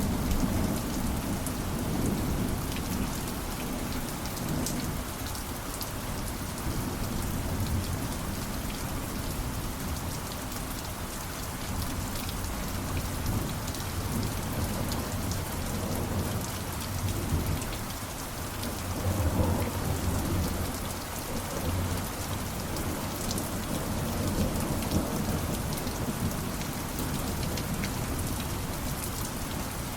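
Steady heavy rainfall with low rolling thunder underneath, the rumble swelling loudest about two-thirds of the way through.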